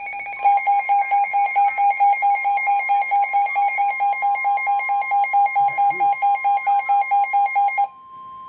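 Weather radio alarm for a severe thunderstorm warning: the steady 1050 Hz warning alarm tone runs under the receiver's loud, rapid alert beeping, about five beeps a second. The beeping stops near the end while the steady tone carries on.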